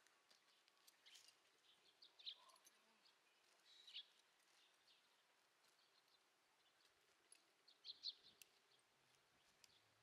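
Near silence, with faint scattered bird chirps; a few short calls come about two, four and eight seconds in, the last pair the loudest.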